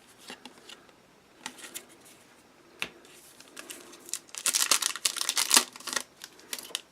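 Paper trading cards being handled by hand: cards slid and flicked against one another, giving scattered clicks and a dense stretch of rustling about four to six seconds in.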